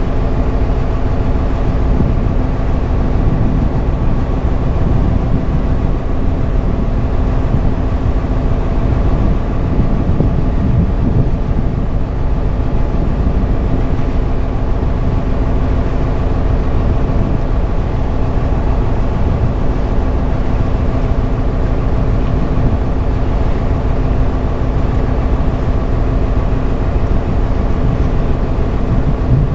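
Dhoni's engine running steadily at cruising speed, an even droning hum over a dense low rumble.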